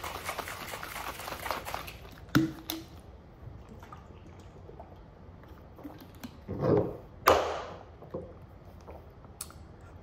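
Plastic shaker bottle shaken, the water and powder sloshing inside for about two seconds. Then come two sharp clicks as the flip-top cap is snapped open, and a few short sipping sounds later on.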